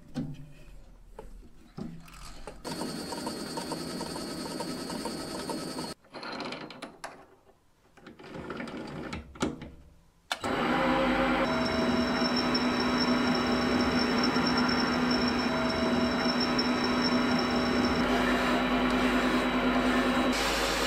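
Small metal lathe running steadily with a hum and a constant whine, starting suddenly about ten seconds in. Before it starts, short, broken sounds of hand work on the metal part held in the chuck.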